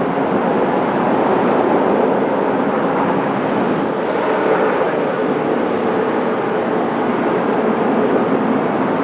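Steady, loud engine noise of a jet airliner landing, with a faint whining tone coming in about halfway through.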